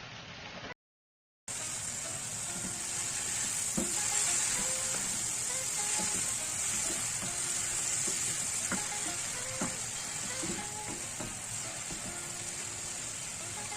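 Food sizzling in a hot pan as it is stir-fried, with scattered clicks of the spatula against the pan. The sizzle cuts in suddenly after a brief silence about a second and a half in, then runs steadily.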